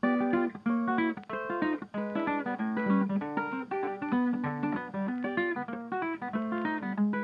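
Background music: guitar playing quick plucked notes, cutting in suddenly at the start.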